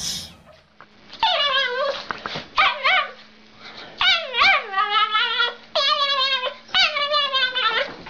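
Dog whining and yowling in a string of about six drawn-out, wavering calls, each sliding down in pitch, over a faint steady hum.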